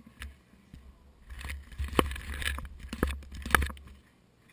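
Rustling and knocking close to the action camera, like handling or contact noise: a low rumble with scraping from about a second and a half in to about four seconds, broken by several sharp clicks.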